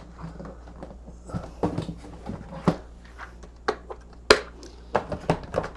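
Light clicks and taps of small parts and tools being handled on a workbench while a piece of heat-shrink tubing is fetched for a soldered wire joint, with one sharper click about four seconds in. A faint steady hum runs underneath.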